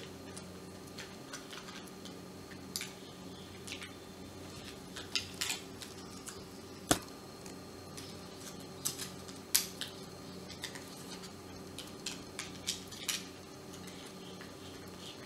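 Hard plastic clicks and light knocks as the parts of a hand blender's handle housing and switch cap are handled and fitted together. The sharpest click comes about seven seconds in, over a faint steady hum.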